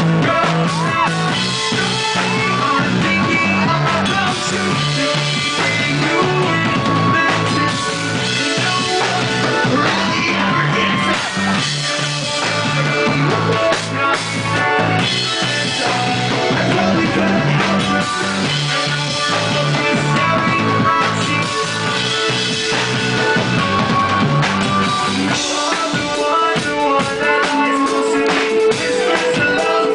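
Loud rock band playing live, with drums and guitars. The lowest notes drop out about 25 seconds in while the rest of the band plays on.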